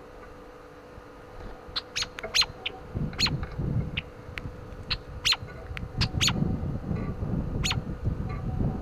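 A bird giving short, sharp call notes, about nine of them spread irregularly over several seconds, each a quick falling chip. Gusts of wind rumble on the microphone from about three seconds in.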